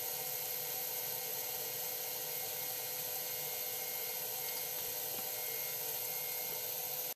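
Sweet soy simmering sauce boiling hard in a frying pan, a steady bubbling hiss as the sauce is reduced.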